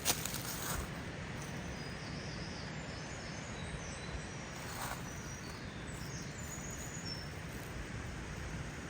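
Steady rushing outdoor background noise, with a few faint, high bird chirps and one soft tap about five seconds in.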